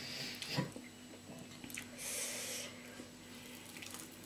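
A person's breath, a hissing rush lasting under a second about two seconds in, with a shorter breathy hiss at the start, over faint eating and cutlery sounds and a steady low hum.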